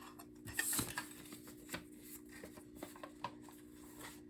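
Faint handling noises: scattered light clicks and rustles, over a steady low hum.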